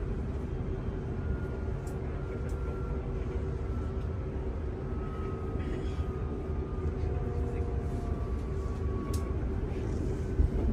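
Commuter electric train heard from inside the passenger car while running: a steady low rumble with a steady hum, and a faint whine that falls slowly in pitch.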